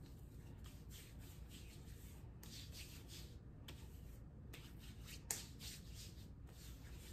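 Hands rubbing lotion into the skin: faint, soft swishing strokes one after another, with one sharper click about five seconds in.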